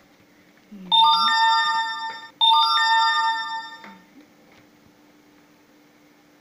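An electronic chime plays twice, each time a quick run of notes that ring on together and fade over about a second and a half. A faint steady hum runs underneath.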